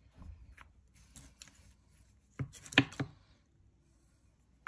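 Old washi masking tape, gone sticky at the edges, being peeled and torn from the roll. There are scattered small clicks, then a louder crackling tear with a sharp snap about halfway through.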